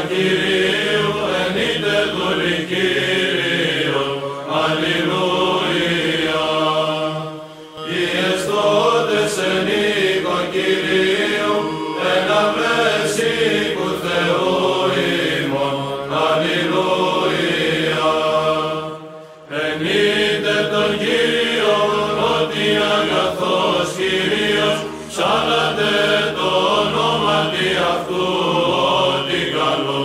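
Sung chant, a slow vocal melody over sustained pitches. It breaks off briefly between phrases about 7 and 19 seconds in.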